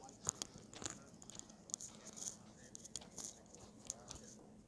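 Faint, irregular taps and rustles of someone walking on pavement while holding the recording phone: footsteps and handling noise.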